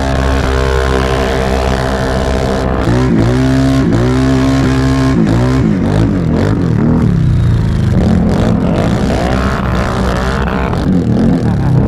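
Can-Am Renegade 1000R ATV's V-twin engine held at high revs, then dipping and climbing back several times as the throttle is worked, and running at lower revs in the second half.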